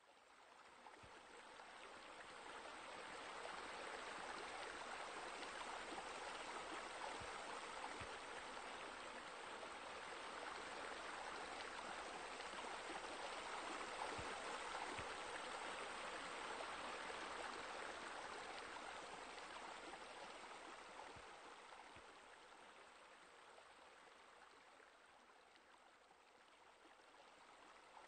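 Water pouring and splashing steadily, as from a small rock waterfall falling into a pool. It fades in over the first few seconds, is loudest around the middle, and dies down over the last third.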